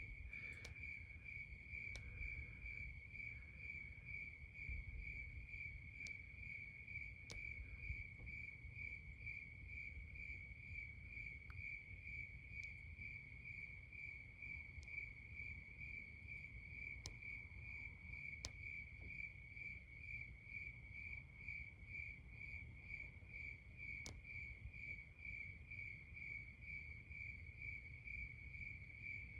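Crickets chirping in a steady, evenly pulsing high trill, with a low rumble underneath and a few faint clicks.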